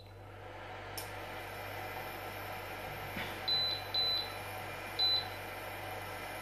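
Touch controls of a glass-top hob beeping: short high pips in pairs, three times between about three and a half and five seconds in, as it is switched on and set. A click about a second in is followed by a steady running noise from the hob.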